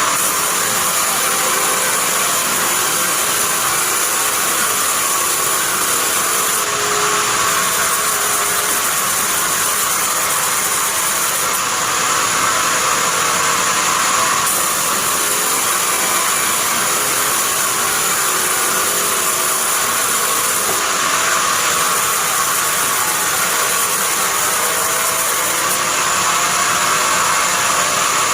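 Band sawmill running with a loud, steady mechanical noise.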